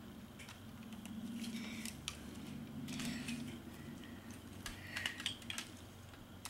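Plastic toy parts of a Claw Armor Megazord being handled and fitted together: scattered small clicks and rattles, a few sharper snaps.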